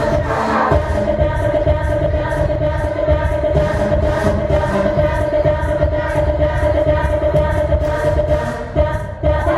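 Loud dance battle music with a steady beat and a long held note, dipping briefly near the end.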